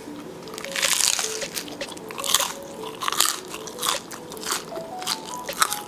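A person biting into and chewing a crunchy food: a series of sharp, crisp crunches, roughly one a second, the loudest about a second in.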